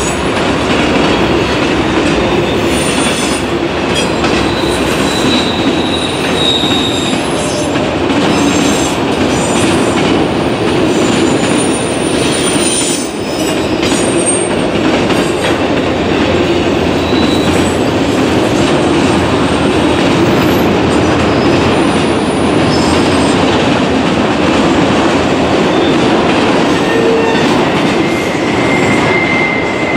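Norfolk Southern freight train of autorack cars rolling past: a steady, loud noise of steel wheels on rail, with short high-pitched wheel squeals now and then.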